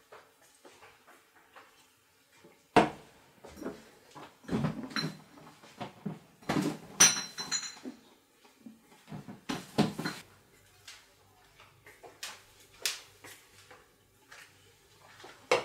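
Kitchen objects being handled: a run of knocks and clattering, with a ringing clink about seven seconds in.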